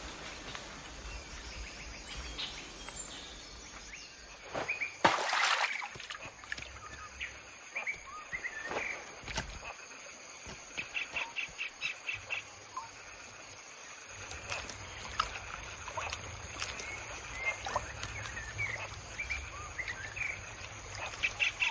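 Forest ambience full of short bird chirps and calls, with a rapid trill of quickly repeated notes about eleven seconds in and again near the end. A steady faint high tone and a low rumble sit underneath, and a louder noise stands out about five seconds in.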